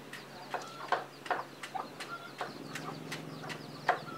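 Chickens clucking in a farmyard: short, sharp calls repeated every few tenths of a second.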